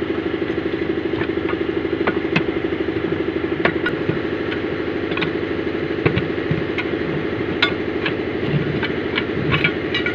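An engine idling steadily close by, with scattered sharp metallic clicks and knocks as steel tyre levers pry the split lock ring off a dumper truck's steel wheel rim.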